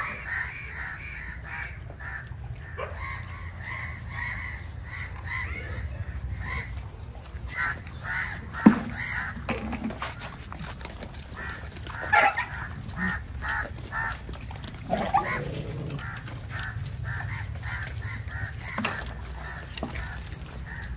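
Repeated animal calls in clusters of short, quick pulses, over a steady low rumble, with one sharp knock about nine seconds in.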